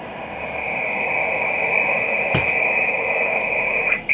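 Steady hiss and noise from a shortwave receiver in upper sideband on the 12-metre band, heard between transmissions, growing louder over the first second or two. There is a single sharp click about halfway through.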